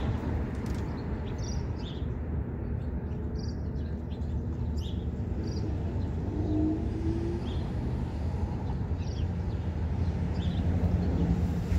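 Steady low rumble of distant city traffic, with a small bird chirping repeatedly.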